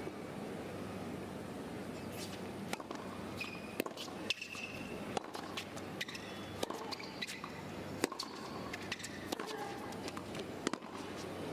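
Tennis rally on a hard court: a serve, then repeated sharp racket strikes on the ball, with brief high squeaks of shoe soles and the shuffle of feet between shots.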